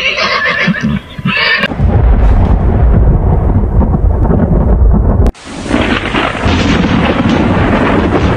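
A horse neighing for about the first second and a half, then a loud low thunder rumble that cuts off abruptly about five seconds in. Steady heavy rain hiss of a thunderstorm follows.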